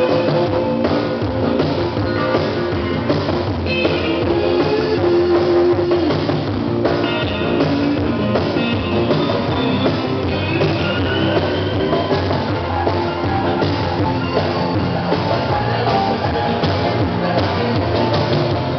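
Upbeat line-dance music with guitar and a steady drum beat.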